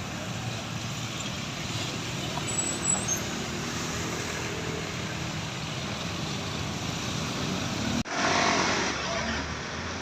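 Road traffic with a heavy vehicle's engine running past. About eight seconds in the sound cuts off abruptly, and a loud rush of a large vehicle passing close follows for about a second before fading.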